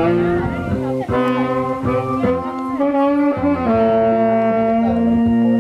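Instrumental background music: a melody of held notes, ending on one long sustained note for the last two seconds or so.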